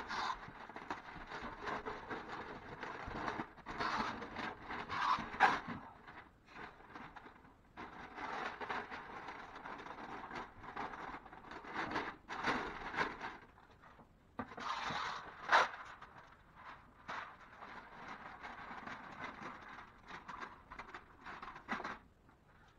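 Masking paper crinkling and rustling in irregular bursts as it is pulled from a hand-held masking tape-and-paper dispenser and wrapped around a ceiling light fixture, with a couple of short sharp sounds along the way.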